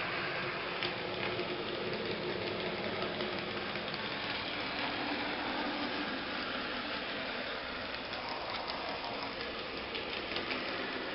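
Model train running along its track, a steady motor and wheel noise with a few light clicks about a second in and again near the end.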